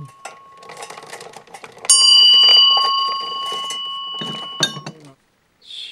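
A small metal bell is struck sharply about two seconds in and rings on, slowly fading, amid light clicking and rattling, with another sharp knock near the end.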